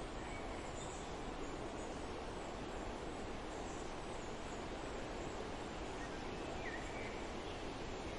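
Steady wind rushing through forest trees, with a few faint bird chirps, the clearest about two-thirds of the way in.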